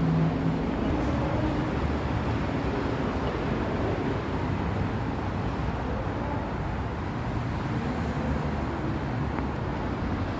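Steady rushing background noise of road traffic carried into a station walkway, even and unbroken. A low hum fades out about half a second in.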